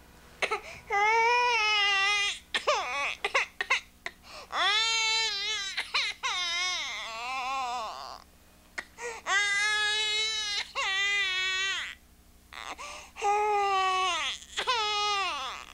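Baby crying: four long, wavering wails with short catches of breath between them.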